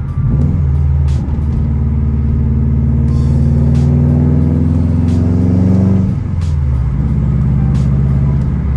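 2002 Subaru WRX's turbocharged 2.0-litre flat-four engine, heard from inside the cabin while driving, pulling with its pitch rising steadily for several seconds, then dropping about six seconds in and running steady near the end.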